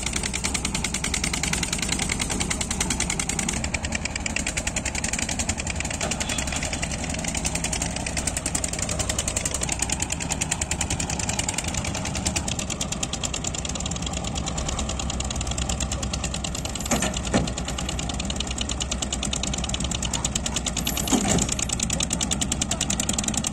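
Diesel engine running steadily with a fast, even chugging. Two short knocks sound about two-thirds of the way through and again near the end.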